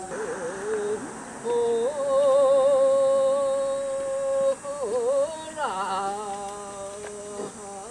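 A group of men chanting a Buddhist Jizō hymn (goeika, wasan) in unison, in long drawn-out notes with a wavering melody and gliding ornaments between the held tones.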